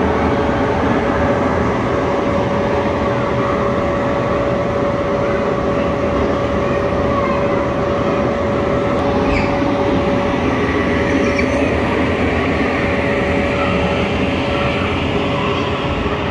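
Steady, loud mechanical rushing rumble with a constant hum tone running through it, unchanging throughout.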